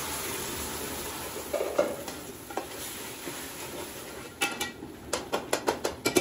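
Raw mango paste sizzling in hot oil as it pours into an aluminium cooking pot, the hiss fading over the first couple of seconds. A metal spoon then stirs the curry base, clinking against the pot's side, with a quick run of knocks near the end.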